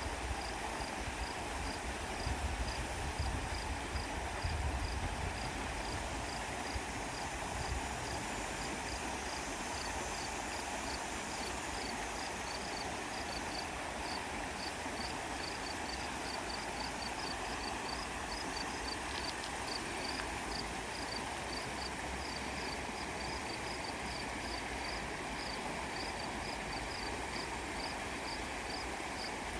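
Steady rush of flowing creek water, with a short high-pitched chirp repeating about twice a second, like a cricket or a small bird. Low rumbling bumps, like wind on the microphone, come and go in the first few seconds.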